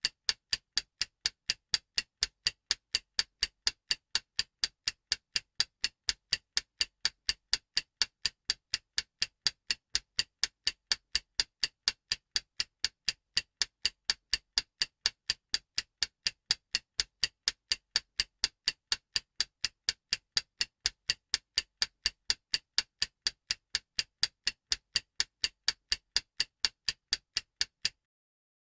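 Clock-ticking sound effect for a countdown timer: a sharp, even tick about three times a second that stops suddenly near the end.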